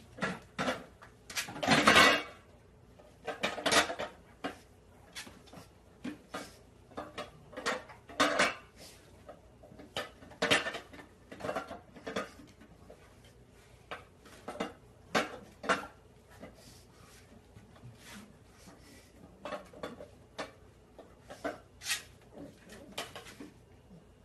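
Jars and cans clinking and knocking together on a kitchen cabinet's turntable shelf as a pug noses through them: irregular clatters throughout, the loudest in the first few seconds.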